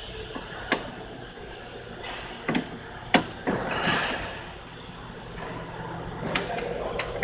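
Sharp clicks and knocks, with a longer scrape about four seconds in, from Dzus quarter-turn fasteners being worked loose and an aircraft access panel being freed.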